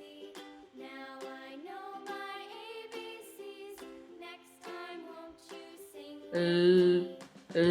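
Light background music with a moving melody, swelling into a louder, fuller sustained chord about six seconds in.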